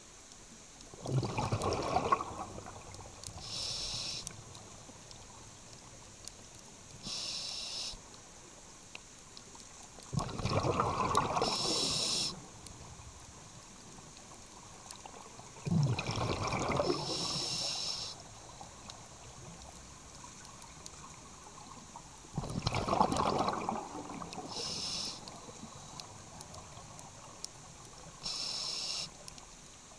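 Scuba diver breathing through a regulator underwater: short high hisses of inhalation through the regulator alternate with bursts of bubbling as exhaled air vents. There are about four exhalations, with slow pauses between breaths.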